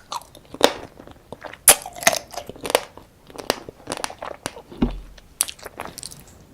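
Close-miked eating of soy sauce marinated raw crab: irregular wet bites, crunches and chewing. There is a dull low thump about five seconds in.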